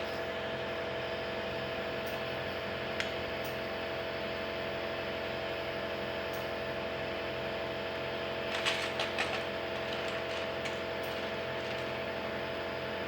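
Steady machine hum, with a single light click about three seconds in and a quick cluster of clicks near nine seconds.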